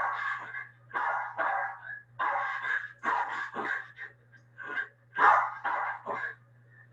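A dog barking over and over in short, sharp barks, about two a second, pausing briefly near the end.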